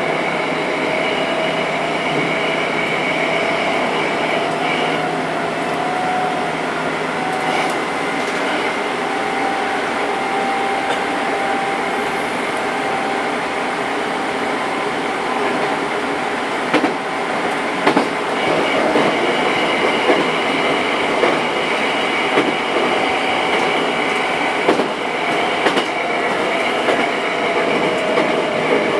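Hankyu electric commuter train running, heard from inside the front of the car: a steady running noise with a high whine. From about halfway a run of sharp clicks and knocks begins as the wheels pass rail joints.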